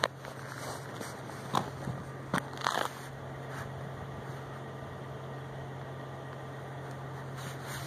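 A steady low hum with four sharp crunching clicks in the first three seconds.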